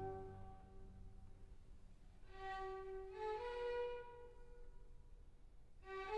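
Soft background music: a slow melody of held notes with a violin-like sound, one phrase of a few rising notes a couple of seconds in and another starting near the end.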